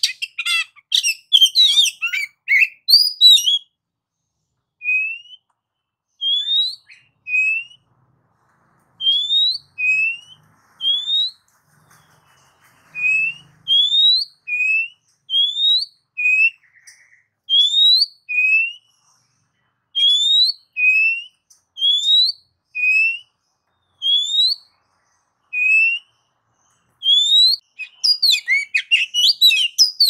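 Oriental magpie-robin (kacer) singing. It opens with a rapid run of varied notes, then gives a long series of short rising whistles about one a second, alternating between a lower and a higher pitch, and breaks into another rapid varied run near the end.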